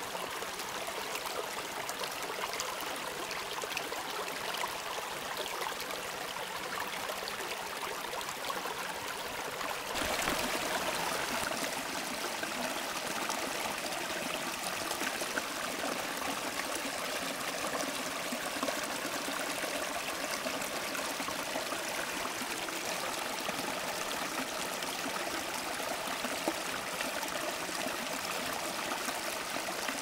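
Small rocky creek running over stones: a steady rush and trickle of water. It turns louder and fuller about ten seconds in, with a small cascade spilling between boulders.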